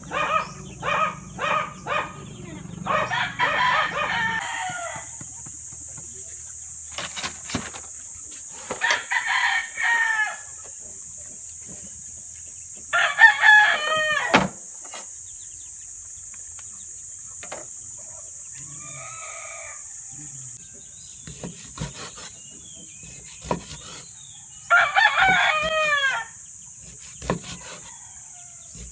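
Four rooster crows, each about a second and a half long, with quick short clucks in the first couple of seconds. A steady high hiss runs underneath, and there are a few sharp knocks.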